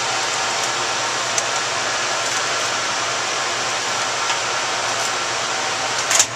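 Steady rush of rack-mounted servers' cooling fans, with a faint whine in it. A few light clicks of a PCIe cable and server hardware being handled, and a sharper knock near the end.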